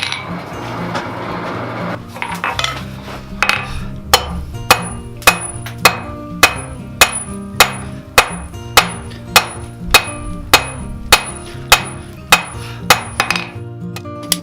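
Steady, even blacksmith's hammer blows on metal at the anvil, about one every 0.6 seconds, each with a short metallic ring. The blows start a few seconds in and stop shortly before the end, over background music.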